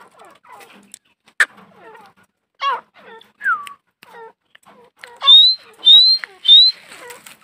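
Female grey francolin (teetar) calling: soft chirps and two falling notes, then near the end three loud, short rising whistled notes about half a second apart.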